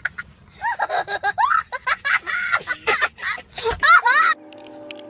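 A small child laughing hysterically in high, breathy, pitch-swooping peals. About four seconds in the laughter cuts off and a steady, held musical tone takes over.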